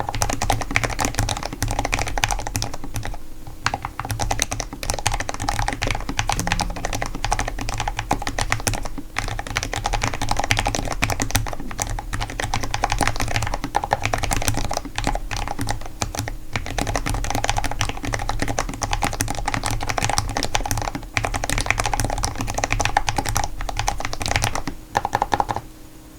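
Fast, continuous typing on a Cherry Xtrfy MX 10.1 LP low-profile mechanical keyboard: dense clacking of keystrokes with a few brief pauses. The typing stops just before the end.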